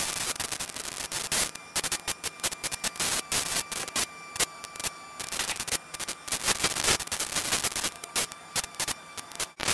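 Electrical interference on a camera's audio track: dense, irregular crackling static and pops, with a faint steady whine underneath.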